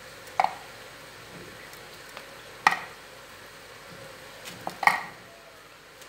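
Cooked chickpeas rubbed between the palms to slip off their skins, with a few light clinks as loose chickpeas drop onto a ceramic plate.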